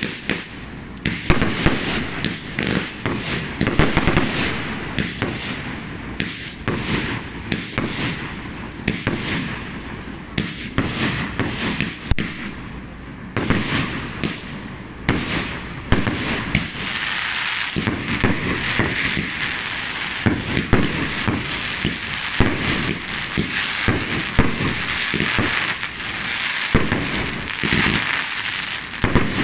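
Aerial fireworks display: a fast run of separate bangs from bursting shells, which about halfway through turns into a dense, continuous crackle of crackling stars.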